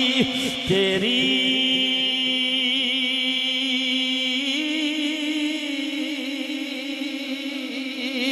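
A man's voice singing one long held note with a wavering vibrato: the drawn-out, melismatic end of a sung line of Punjabi verse. The pitch steps up about halfway through.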